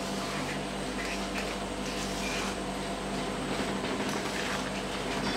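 Wire whisk stirring thick chocolate and ground-almond cake batter in a stainless steel bowl, a steady soft scraping, over a steady low hum.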